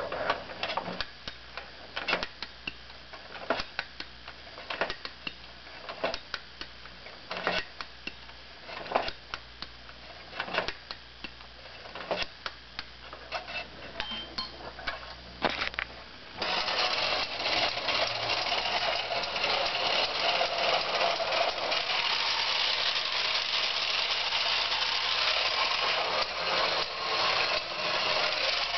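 Wind-up tin toy car: separate clicks as its clockwork is wound, then from a little past halfway its clockwork motor runs with a continuous loud whirring rattle.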